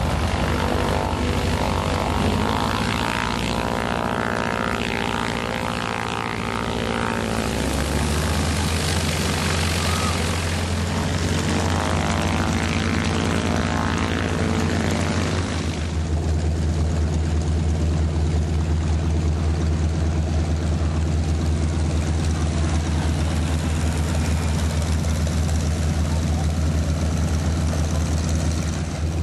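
Pilatus PC-9 turboprop trainers flying over in formation: a steady propeller drone, their pitch gliding up and down through the first half, then settling into a steadier, deeper drone about halfway through.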